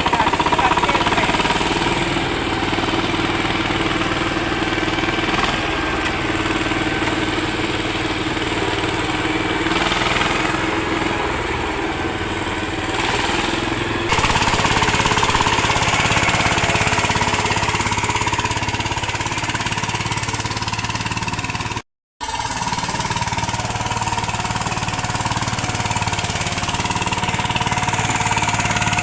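VST power tiller's single-cylinder diesel engine running steadily just after a first-try start. It gets louder about halfway through and drops out for an instant near the end.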